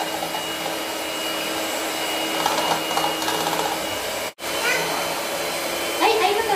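Electric hand mixer running steadily, its beaters whisking eggs in a bowl. The whir cuts out briefly about four seconds in, and a voice speaks over it near the end.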